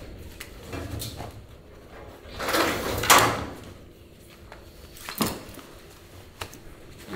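Clothes and a towel being handled and put down on a bench: a loud rustling swish about two and a half seconds in, with scattered sharp clicks and knocks before and after it.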